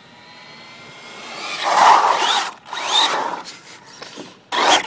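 Radio-controlled Traxxas rally car on asphalt: a faint rising electric-motor whine as it approaches, then three loud rushing, scraping bursts as it runs close by, the last one short, near the end.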